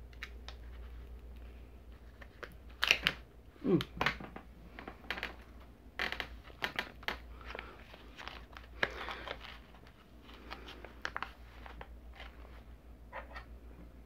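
Plastic food packaging crinkling and tearing as a microwaveable tuna meal is opened by hand: an irregular string of sharp crackles and clicks, loudest about three to four seconds in.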